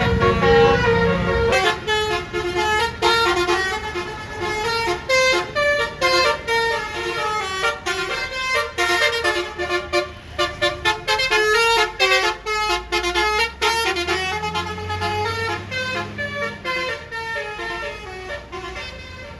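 Basuri telolet bus air horn playing a long, fast melody of short notes that jump in pitch several times a second, with a bus engine running underneath.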